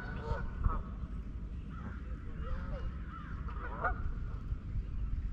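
Geese honking: a string of short calls spread through the whole stretch, over a steady low rumble.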